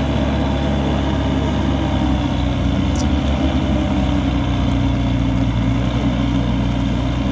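Manitou telehandler's diesel engine running steadily under load as it pulls a 4x4 stuck in mud on a tow strap.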